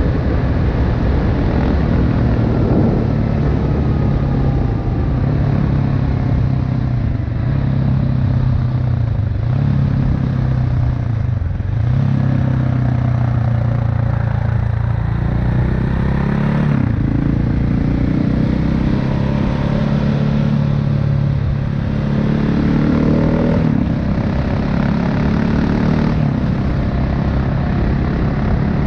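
Single-cylinder engine of a KTM 690 Enduro R heard onboard while riding. The revs climb and drop back several times, with short throttle lifts about ten, twelve, seventeen and twenty-four seconds in, over a steady rush of wind and road noise.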